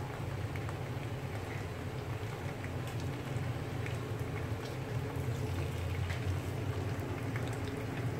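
Tofu cubes frying in oil in a nonstick pan: a steady sizzle with scattered small pops and crackles of spitting oil, over a steady low hum.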